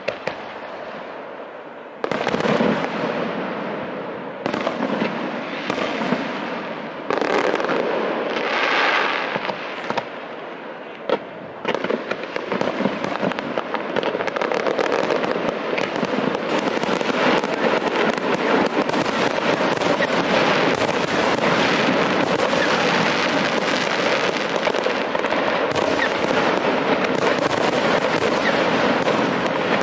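Fireworks display: aerial shells bursting one after another every couple of seconds, then from about twelve seconds in a dense, continuous barrage of bangs and crackling.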